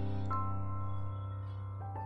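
Soft instrumental background music with held, sustained notes; a new note enters about a third of a second in and another near the end.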